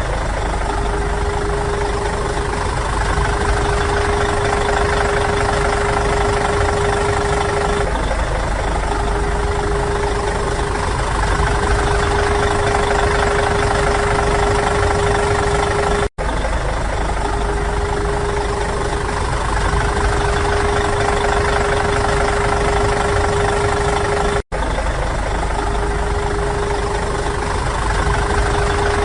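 A motor or engine running steadily with a constant hum and a rough, knocking undertone. The sound cuts out for an instant twice, once a bit past halfway and again later on.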